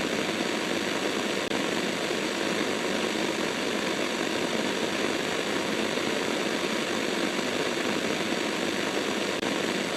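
Steady broadcast static, an even hiss with faint steady tones in it and no bass.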